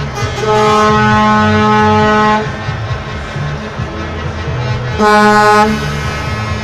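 Truck air horn blowing one long single-note blast of about two seconds, then a short blast about five seconds in, over the low running of the trucks' diesel engines.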